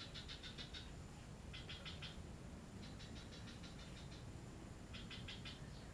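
Faint animal chirping in four short bursts, each a quick run of rapid high clicks, with about a second or more between bursts, over a faint steady high whine.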